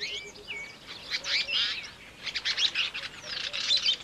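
Songbirds chirping and trilling: many quick, overlapping high calls that come thickest from about a second in and again in the second half.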